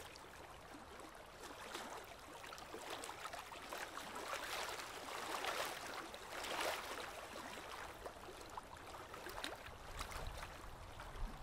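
Choppy sea water lapping and splashing right at the microphone, an uneven wash with many small splashes that swells a little in the middle.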